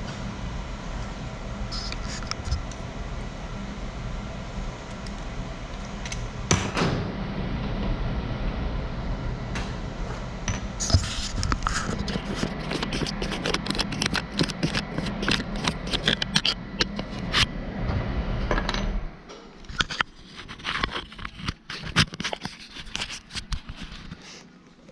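A steady low mechanical hum that cuts off suddenly about 19 seconds in. Over the second half come many quick clicks, taps and scrapes of small gear being handled, with the camera itself knocked about near the end.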